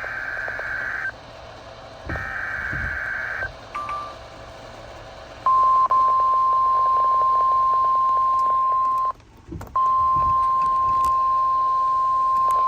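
NOAA Weather Radio emergency alert: two short bursts of screeching SAME digital header data, then the steady, piercing 1050 Hz warning alarm tone starting about five seconds in, briefly cut off about nine seconds in. It signals that a warning, here a severe thunderstorm warning, is about to be read.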